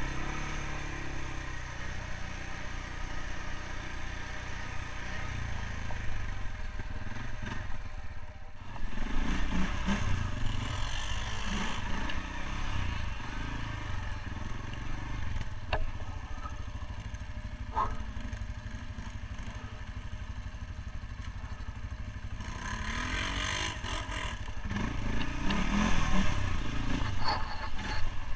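CF Moto 520L quad's single-cylinder engine running under way on a rough dirt trail, pulling harder twice, about a third of the way in and again near the end. Light rattling of the machine and an odd short knock over the bumps.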